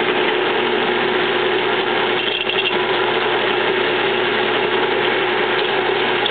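Bench drill press motor running steadily with a hum, its modified bit cutting an oil-sink countersink into a brass bushing in a clock plate.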